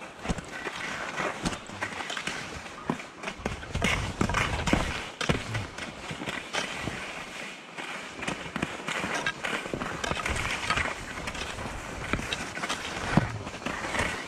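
Skis running over groomed snow: an uneven scraping hiss broken by many small knocks and clatters. At times a low rumble of wind on the microphone rises under it.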